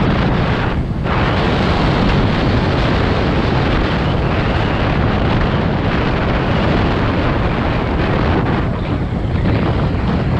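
Wind buffeting the microphone of a moving vehicle on the road: a loud, steady rush of noise.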